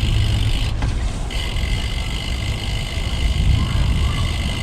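Wind rumbling on the microphone of a moving bicycle, a choppy low rumble with a steady hiss above it; the hiss dips briefly about a second in.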